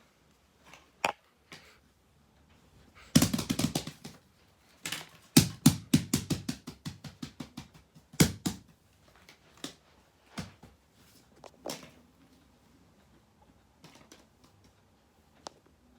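Small plastic fidget toys handled and clicked: scattered sharp clicks and taps, with a short run of rapid clicking and then a longer run that starts quick and slows over about three seconds.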